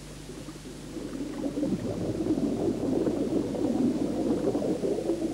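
Underwater bubbling and gurgling of a scuba diver's exhaled air, swelling about a second in and loudest in the middle.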